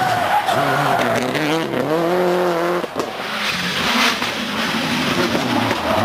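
Subaru Impreza WRC rally car's turbocharged flat-four engine revving hard under acceleration, its pitch climbing, falling away sharply about halfway through, then climbing again.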